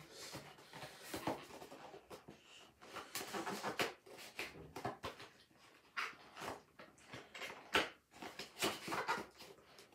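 Cardboard toy packaging being handled close to the microphone: irregular rustling and scraping as a wooden toy engine is worked out of its box.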